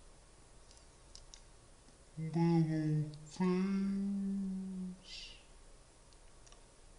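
A man humming unaccompanied: a short wavering phrase about two seconds in, then one long held note, followed by a quick breath in.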